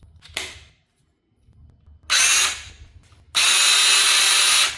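Duratech 12-volt battery mini chainsaw run briefly with no load, in two trigger pulls: a short half-second burst, then a longer run of about a second and a half, each starting and stopping sharply. A test run after the chain has been refitted and re-tensioned, showing the saw still runs.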